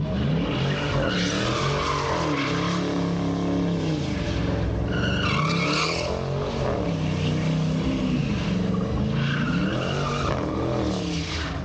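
Car doing smoky donuts: the engine revs up and down over and over while the spinning rear tyres squeal, with the loudest squeals about five seconds in and again near the end.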